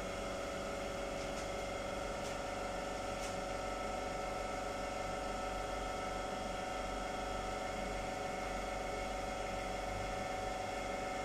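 Steady machine hum: several fixed tones over a low hiss, unchanging throughout, with a few faint ticks in the first few seconds.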